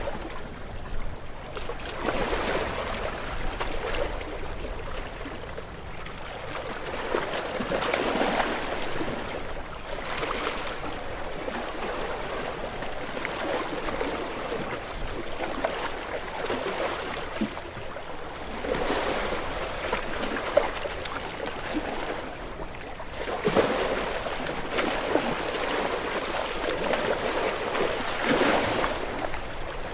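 Ocean waves breaking and washing over rocks: a continuous rush of surf that swells every few seconds as each wave comes in, with sharp splashes and crackles of water among the rocks.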